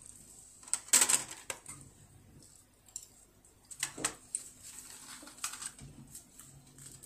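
Mandarin orange (mikan) peel being pulled and torn off by hand, soft crackling and ripping, with a louder tearing burst about a second in and another about four seconds in.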